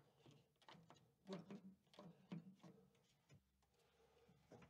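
Near silence, with a few faint taps and clicks starting about a second in as a metal trap-door frame and its clamps are shifted by hand.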